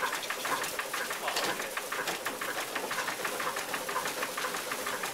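Old wooden mill machinery running with a fast, steady clatter of its wooden gearing and works, several knocks a second.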